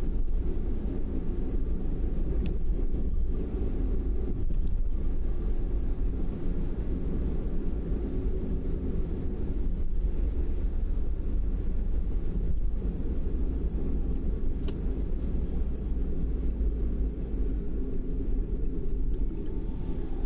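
Strong wind buffeting the microphone: a steady, gusting low rumble.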